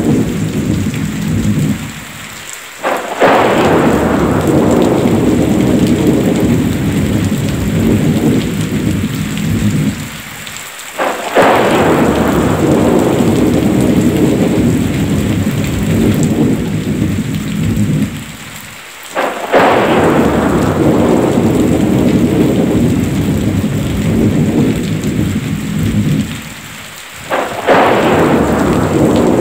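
Heavy rain with thunder: a dense hiss of rain broken about every eight seconds by a short lull and then a sudden loud crack of thunder that rumbles on, four times in an even, repeating pattern.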